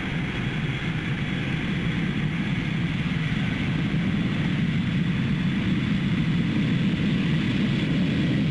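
Boeing 747 jet engines at take-off power as the jumbo jet lifts off and climbs: a steady rushing jet noise that grows gradually louder.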